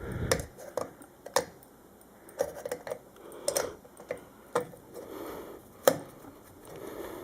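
Scattered light clicks and taps at irregular intervals, from hand work with a ratcheting screwdriver on a ceiling fan's light fixture.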